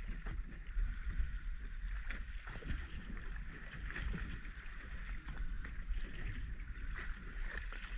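Choppy sea water lapping and splashing against the hull of a small drifting boat, with wind rumbling on the microphone.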